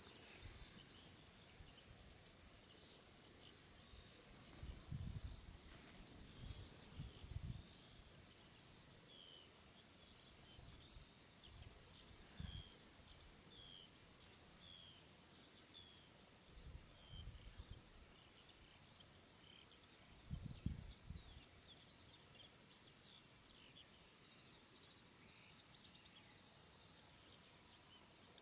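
Faint outdoor ambience: many distant small birds chirping in short high notes, with a few brief low rumbles about five, twelve, seventeen and twenty seconds in.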